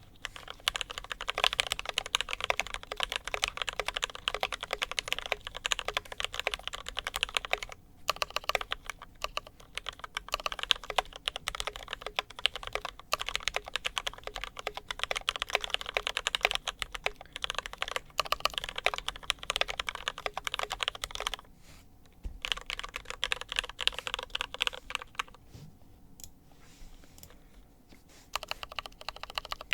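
Typing on an ID80 mechanical keyboard fitted with lubed Milky Gateron Yellow linear switches, PBT Cherry-profile keycaps and foam under the plate and PCB. It is a fast, steady run of key clicks that pauses briefly about eight seconds in and thins out to a few strokes a few seconds before the end.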